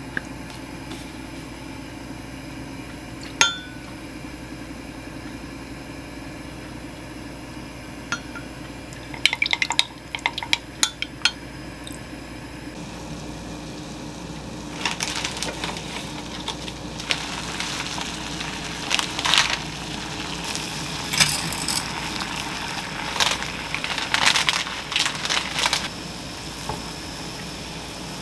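Kitchen clatter: dishes, utensils and glass clinking and knocking, a few isolated clicks at first and then frequent clattering in the second half, over a steady low hum.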